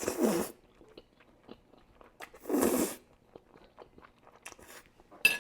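Close-miked eating of chicken Alfredo: chewing and wet mouth clicks, with two louder short noisy sounds, one right at the start and one about two and a half seconds in, and a sharp click near the end.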